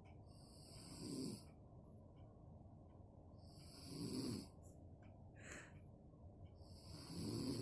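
A sleeping woman snoring: three long snores about three seconds apart, each a low rasp with a breathy hiss. The uploader puts the snoring down to exhaustion.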